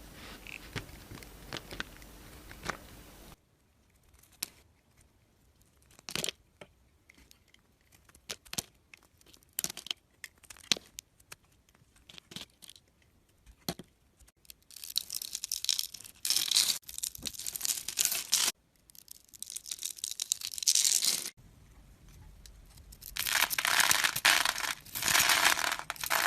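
Knife cutting through dry bar soap: scattered crisp clicks and snaps at first, then three long stretches of dense crunchy crackling as the soap crumbles under the blade.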